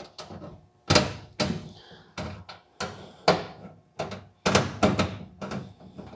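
Irregular sharp clacks and knocks, about nine in five seconds, the loudest about a second in: a screwdriver, bolts and grill parts handled while woven stainless steel mesh is fastened into a car grill shell.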